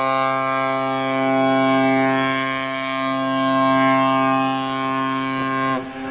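Cruise ship's horn sounding one long, steady, low blast that stops with a slight drop in pitch near the end.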